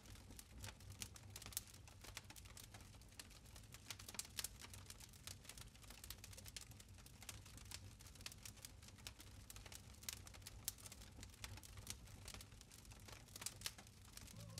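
Faint crackling of a wood campfire: many small irregular pops and snaps over a low steady hum.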